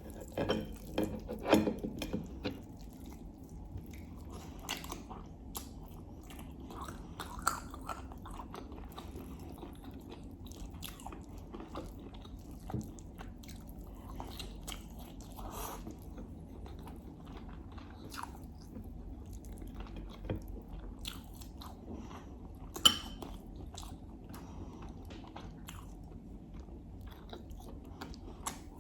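Close-miked mouth sounds of a person eating a meal of herb stew, rice and lamb: steady chewing with many short wet clicks and smacks, busiest in the first couple of seconds, and one sharp louder click a little after the twenty-second mark.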